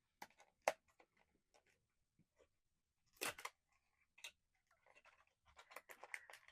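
A small cardboard blind box being opened and handled by hand: scattered light taps and clicks, a short rustle of packaging about three seconds in, then a quick run of small ticks near the end.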